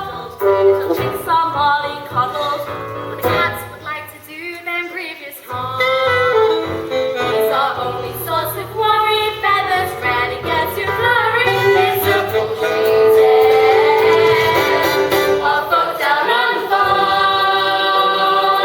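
A group of young performers sings a stage-musical song together over instrumental accompaniment, dipping briefly about four seconds in and then holding long notes.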